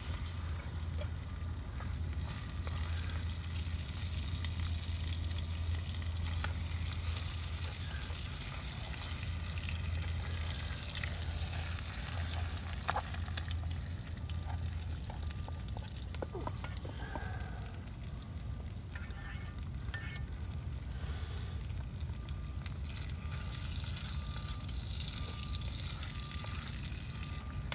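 Eggs and bacon frying in a pan, a steady sizzle, with a few light clicks of a utensil about halfway through.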